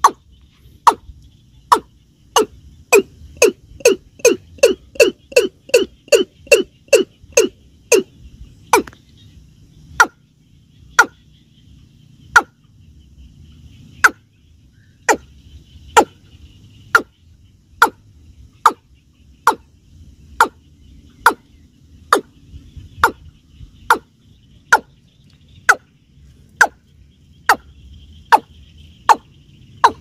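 Watercock (keb-keb) calling: a long series of short, sharp 'keb' notes. They quicken to about three a second, each with a lower falling note beneath it, until about nine seconds in, then go on at about one a second.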